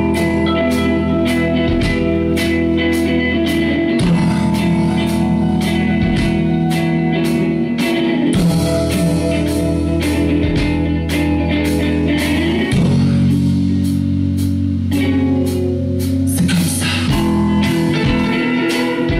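Live rock band playing an instrumental passage: guitar over bass and a steady drum beat, with a few notes sliding in pitch.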